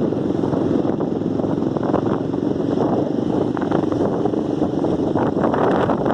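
Heavy wind buffeting the microphone during a ride: a loud, steady, fluttering rush with no clear engine note.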